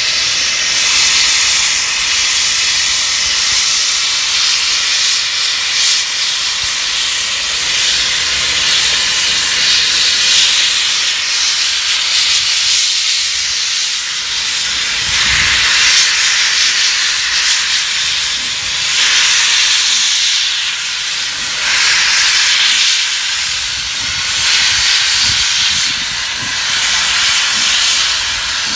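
Steam locomotive No. 6201 Princess Elizabeth hissing loudly as steam blasts out at track level around its cylinders, swelling louder several times.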